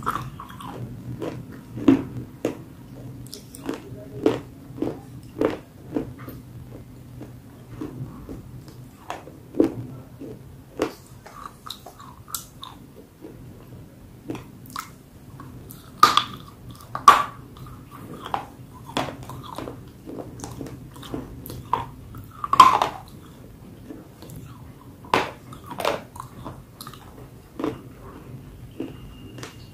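Close-up crunching as a person bites off and chews pieces of a dry grey chalky slab: sharp, irregular crunches spaced a second or so apart, the loudest a little past the middle. A faint steady low hum runs underneath.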